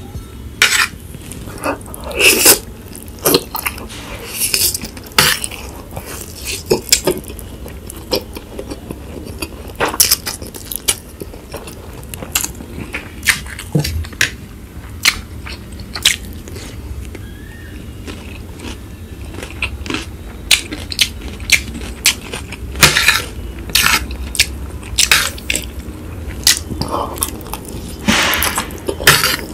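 Close-miked eating: fork clinking and scraping on a plate, with wet chewing and mouth smacks from spicy instant noodles. The short sharp sounds come in irregular clusters and grow denser near the end, as a large forkful of noodles is slurped in.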